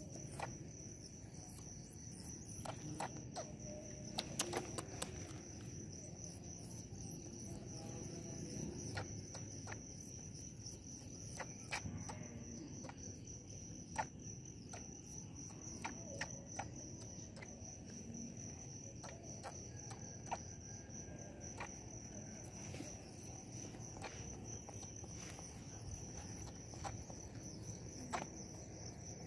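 Insects chirring in one steady high-pitched drone, with scattered faint clicks and taps over a low background hum.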